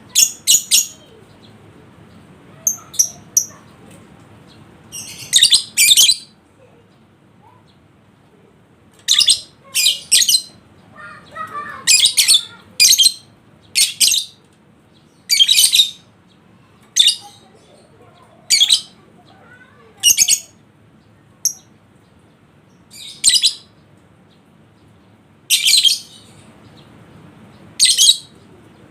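Lovebird calling with sharp, shrill chirps, one or two at a time, every second or two.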